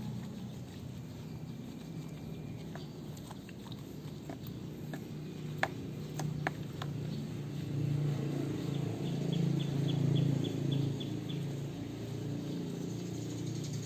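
Hands rubbing shampoo lather into a wet puppy's fur, a soft wet rubbing noise, with a few sharp clicks a little before the middle and a quick run of high ticks, about four a second, a little past the middle.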